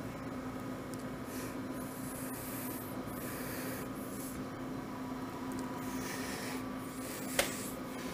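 Steady hiss of a burning glassworking torch over a constant low hum, with a few soft scraping sounds as hot glass is worked in the squeezer jaws. A single sharp click about seven seconds in.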